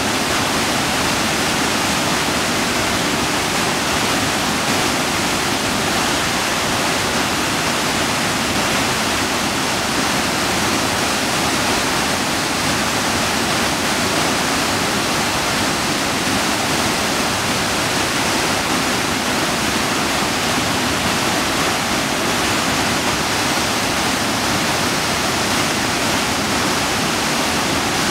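A waterfall rushing: steady, unbroken falling water that does not change.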